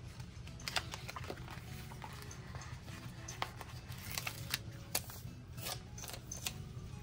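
Scattered light clicks and taps from paper and stickers being handled and pressed onto a planner page, over soft background music.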